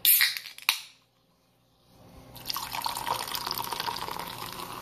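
Sprite Zero soda poured from an aluminium can over ice in a glass, a steady pouring and fizzing that starts about two seconds in. It follows a couple of short, sharp sounds right at the start.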